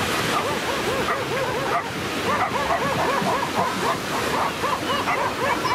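Several stray dogs barking and yelping at one another in rapid, overlapping short barks: a territorial squabble between local dogs and newcomers.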